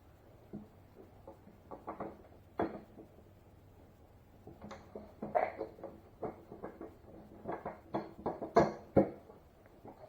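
Scattered clicks, taps and light knocks of hand tools and bolts against a plastic three-wheeler fender as it is fitted and bolted on, growing busier in the second half.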